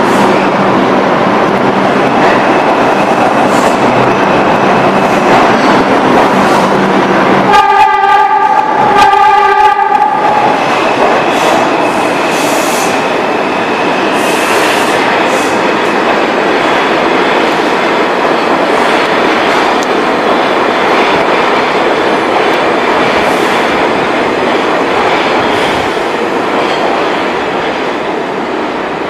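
R142 subway train running out of the station, with loud, continuous wheel and motor noise. A train horn sounds two blasts about eight seconds in, and the train noise slowly fades as the train pulls away.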